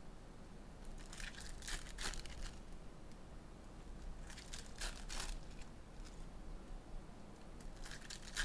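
Foil trading-card pack wrappers crinkling and tearing open, in three short bouts of rustling.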